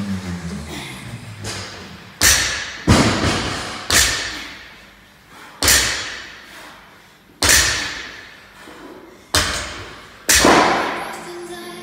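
Loaded barbells with rubber bumper plates thudding down on a rubber gym floor during deadlift reps: about seven heavy thuds a second or two apart, each ringing out briefly.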